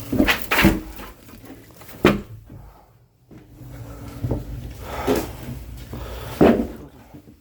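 Split oak firewood logs knocking against each other as they are handled and stacked: a series of sharp wooden knocks, about six, the sharpest about two seconds in.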